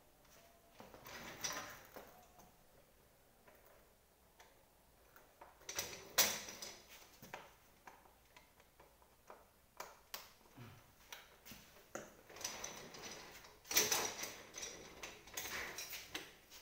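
Office chair being worked on by hand: irregular knocks, clicks and scrapes of its plastic and metal parts, with a sharp knock about six seconds in and a busier run of knocks and scraping toward the end.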